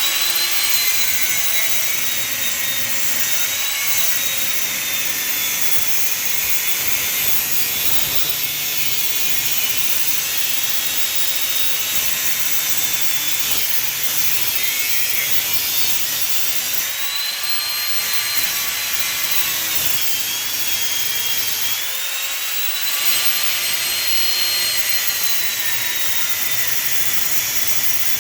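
Angle grinder cutting through heavy brass scrap: a loud, continuous high whine with a grinding rasp, its pitch sagging a few times as the cutting disc takes load and then recovering.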